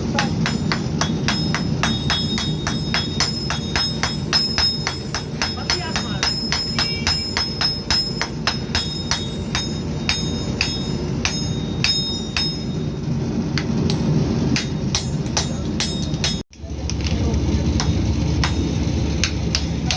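Hammers striking steel on an anvil in a quick, steady rhythm, each blow ringing with a high metallic tone, as axe heads are forged. The sound cuts out for an instant about sixteen seconds in, then the hammering goes on over a deeper rumble.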